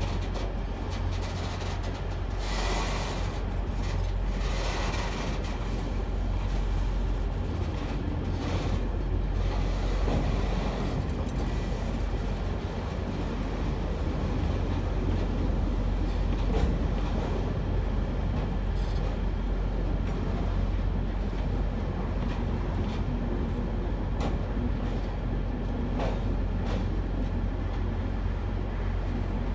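Freight train rolling slowly past: wagon wheels clatter and click over the rail joints over a steady low rumble, with sharper clicks and scrapes in the first few seconds.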